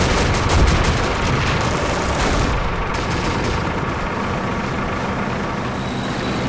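Battle sound effects: rapid machine-gun and rifle fire over the low rumble of tank engines, the shooting thinning out after about two and a half seconds and leaving mostly the steady rumble.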